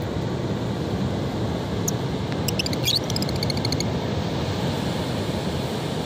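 Steady rush of breaking surf and wind on the beach. About two seconds in, a lovebird gives a single high chirp, then a quick run of rapid, high-pitched chirps lasting just over a second.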